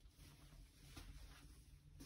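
Near silence: faint indoor room tone with a low steady hum.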